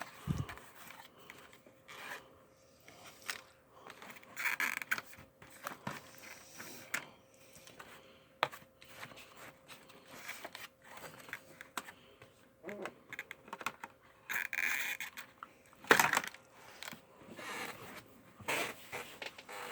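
Toy packaging being cut and pulled apart by hand: plastic and cardboard rubbing and scraping, with scattered clicks and snips. There is a sharp click about 16 seconds in.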